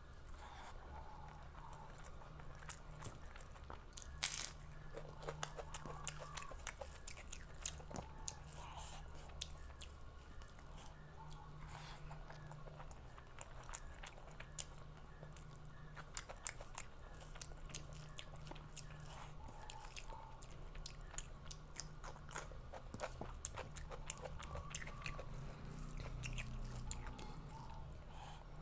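Close-miked chewing and crunching bites of food, a steady run of wet mouth clicks and crisp crunches, the sharpest crunch about four seconds in. A low steady hum lies underneath.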